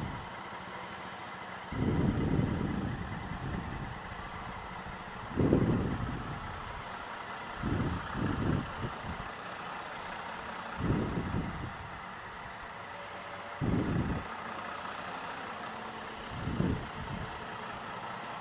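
Steady hum of slow traffic and an idling motorcycle in a road tunnel. Low, muffled bursts break through it about every two to three seconds.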